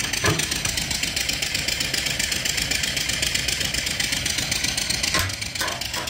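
Antique-reproduction steam engine (3-inch bore, 4-inch stroke) running steadily on steam from a coal-fired boiler, with a fast, even beat. A couple of short metallic knocks come about a third of a second in and again near the end as the firebox door latch is handled.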